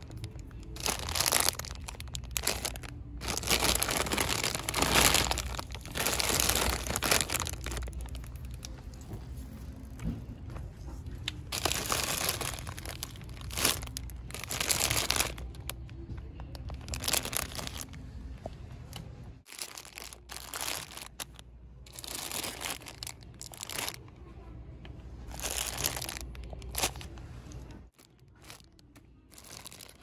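Plastic candy bags being squeezed and crinkled by hand, in irregular bursts of crackling with short pauses between them, over a low steady hum.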